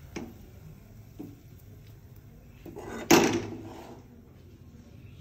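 A metal spoon scraping and knocking against a metal cooking pan while halwa is scooped out, with two light taps early on and one loud clunk about three seconds in.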